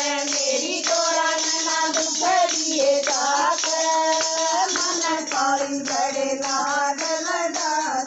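Shiva–Parvati devotional bhajan music: a winding melody of long held notes over constant jingling percussion.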